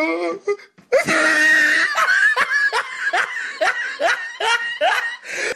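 Hearty laughter after a short pause. It starts with a held note about a second in and turns into a long run of quick, rising 'ha' bursts, about two or three a second.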